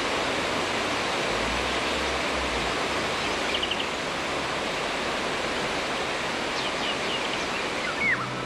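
Water rushing steadily over a low river weir. A few short, high bird chirps come through about a third of the way in and again near the end.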